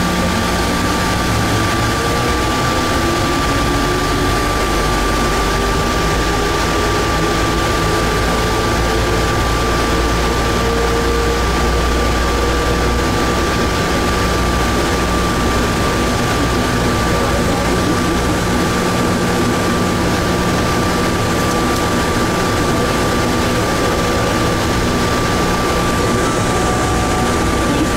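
Automated people-mover train running through its tunnel, heard from inside the car: a steady rolling rumble with a constant high-pitched tone, and a motor whine that rises in pitch over the first ten seconds or so as the train picks up speed.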